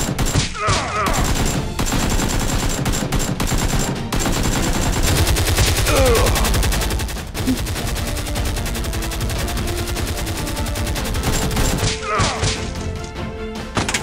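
Gunfire sound effects: long, rapid bursts of automatic fire, thickest in the middle, with a few falling whizzing sweeps near the start, the middle and near the end.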